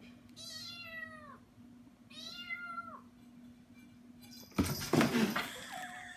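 Kitten meowing twice, each a falling call about a second long, the second coming about two seconds in. About four and a half seconds in there is a brief, louder burst of clatter and rustling.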